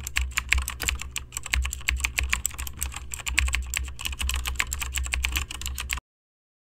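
Typing on a computer keyboard: fast, irregular keystroke clicks over a low hum, cutting off suddenly about six seconds in.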